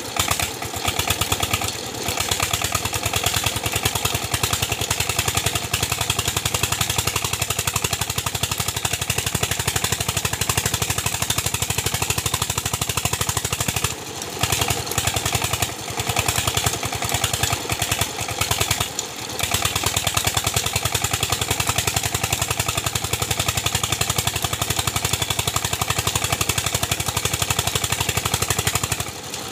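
Old single-cylinder Peter diesel engine running steadily under load, driving a tubewell pump by belt, with a fast, even knocking beat. Water gushes from the pump's outlet pipe, and the sound breaks off briefly a few times after the middle.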